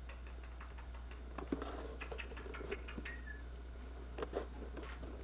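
A newborn foal nursing at its mare in a straw-bedded stall: scattered small clicks and rustles of suckling and shifting in the straw, over a steady low hum.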